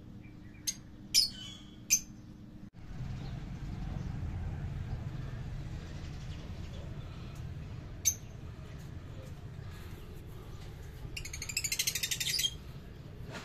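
Lovebird calls: three sharp chirps in the first two seconds, one more about eight seconds in, and near the end a rapid rattling chatter lasting about a second. A low rumble of handling noise runs underneath after the first few seconds.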